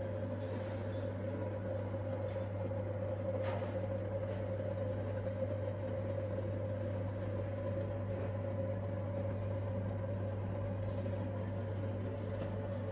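A small motor running with a steady low hum and a constant mid-pitched whine.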